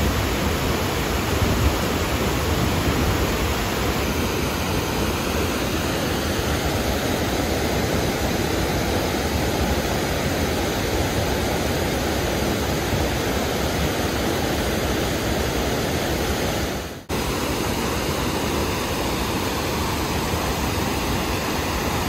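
River water rushing over a stepped weir and around rocks, a steady roar of white water from a river running high after the monsoon. The sound breaks off for a moment about seventeen seconds in.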